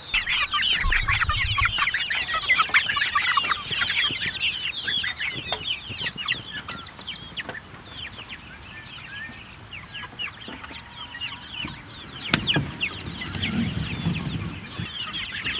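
A flock of young chickens cheeping: many short, high peeps overlapping, thickest in the first few seconds and then thinning out. A single knock sounds about twelve seconds in.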